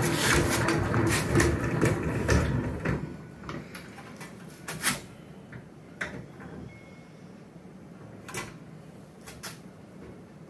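Hand-cranked stainless steel honey extractor spinning with a steady whir and rattle for about three seconds, then stopping. After that come a few sharp metallic clicks and knocks as its lid is opened and a comb frame is lifted out.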